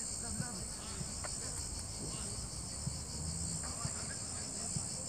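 A steady, high-pitched chorus of insects chirring without a break, with faint distant voices beneath it.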